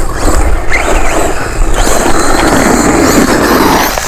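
Electric 1:10 mini RC monster truck driving on a dirt track: a steady rushing noise of its tyres on loose dirt and gravel, with a brief rising motor whine under a second in.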